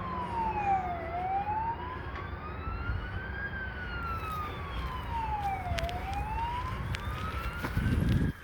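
Fire engine siren sounding a slow wail, its pitch rising and falling about every five seconds, over a low vehicle rumble that swells loudly near the end.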